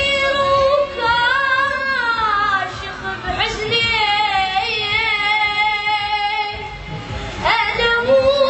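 A high voice singing long, drawn-out phrases with a wavering vibrato in an Iraqi Arabic vocal style. One phrase fades near the end and a new one begins with a rising note.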